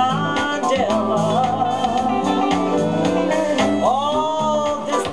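Modern soul-jazz record playing from a 7-inch 45 rpm vinyl single on a turntable: a band with a walking bass line under a long held sung note, then a swooping note near the end.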